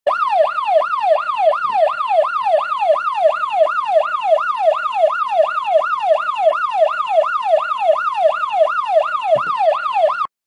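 Electronic alarm siren wailing in a fast repeating pattern, each cycle a quick fall in pitch, about two and a half cycles a second. It cuts off suddenly near the end.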